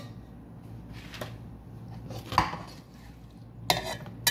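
A slotted metal spoon clinking and scraping against a metal pot while half-cooked rice is spread level. A few separate clinks, the loudest about two and a half seconds in, with two more near the end.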